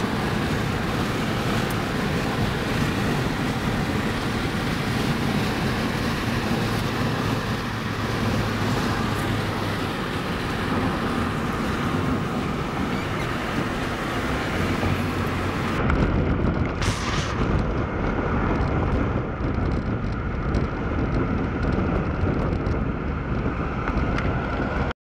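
Steady road, engine and wind noise inside a moving car at highway speed. About sixteen seconds in the sound turns duller, with a brief hiss about a second later.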